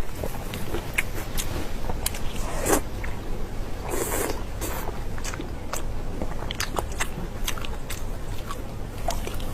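A person biting and chewing food, with many small sharp clicks and a couple of louder bites about three and four seconds in.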